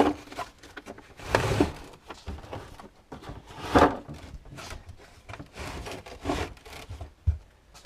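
Tools being handled and set down in a car trunk: a string of irregular knocks, clunks and rubbing, the loudest clatter a little under four seconds in.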